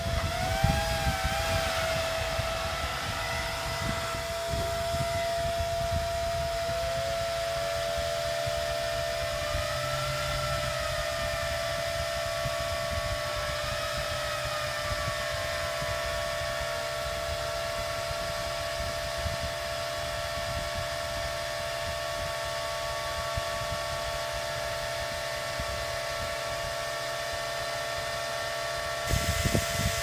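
Four Dell PowerEdge R710 server fans running at high speed together: a steady multi-tone whine over a rushing hum. Several of the pitches glide up and down as the fan controller changes their speed.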